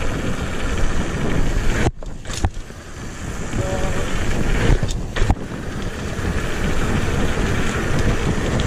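Wind rushing over an action camera's microphone and mountain-bike tyres rolling on a paved lane while riding. The noise drops away briefly about two seconds in, and a couple of sharp knocks come around five seconds in.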